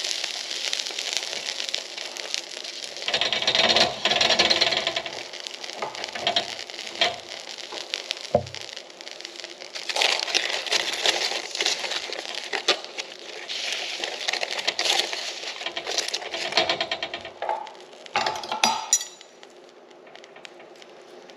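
Aluminium foil crinkling and rustling as a foil packet is handled and opened, with scattered clicks and clinks. It dies down near the end.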